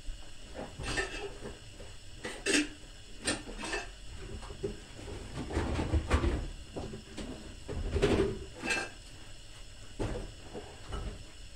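Rummaging in a low kitchen cupboard: a string of irregular knocks and clatters as bowls and basins are shifted about and pulled out, with the cupboard door bumping.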